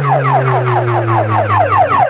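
DJ sound system playing an electronic siren-like effect: a fast repeating falling sweep, about six a second, over a steady low bass drone.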